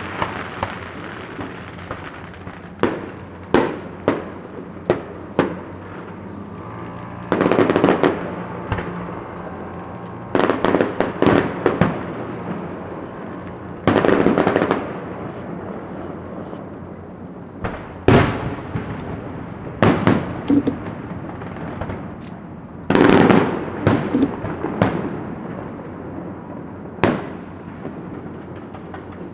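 Fireworks going off: single sharp bangs, about one a second in the first few seconds, then crackling bursts roughly a second long that come every few seconds, with lone loud bangs in between.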